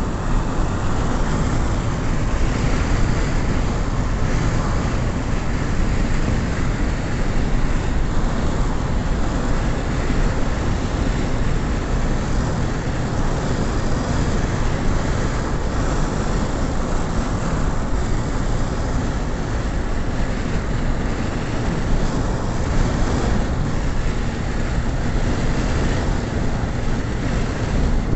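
Steady road noise inside a moving car: tyres on asphalt and the engine, an even noise heaviest at the low end with no breaks.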